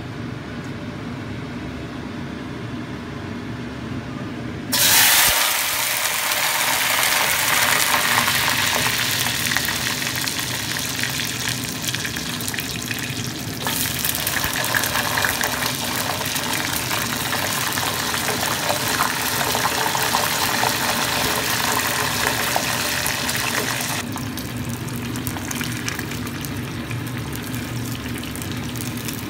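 Raw potato fries going into hot oil in a small enamel saucepan: about five seconds in the oil suddenly breaks into loud, steady sizzling and bubbling, easing somewhat near the end. A low steady hum runs underneath.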